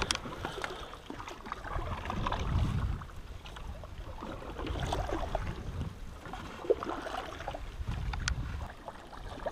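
Canoe paddles dipping and pulling through lake water, the swish of the strokes swelling and fading every few seconds, with a couple of faint clicks.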